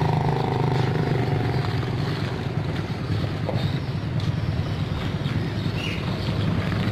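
Mitsubishi Canter light truck's diesel engine running as the truck pulls away, its low hum easing off a little as it goes.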